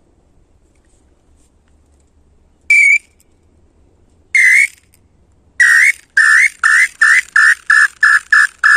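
Inhambu (tinamou) call whistle being blown to call tinamous: two separate clear whistled notes, then a quicker run of about nine shorter notes, roughly three a second.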